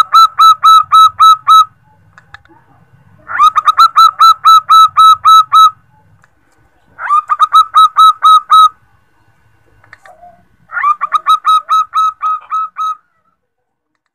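Zebra dove (perkutut) calling in four bursts of rapid staccato notes, about five notes a second, each burst lasting about two seconds with short pauses between. The call is presented as a female calling to males, used as a lure call for trapping males.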